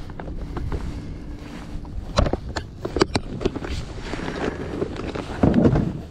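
Clear plastic compartment tackle box being handled: sharp plastic clicks and rattles as it is opened and lifted, over steady wind noise on the microphone, with a louder bump near the end as it is moved aside.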